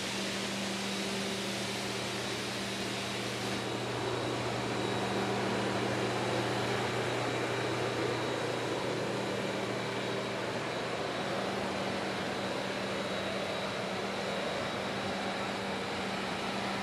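Steam-hauled passenger coaches rolling past on the track: a steady rolling noise of steel wheels on rail, with a low hum underneath.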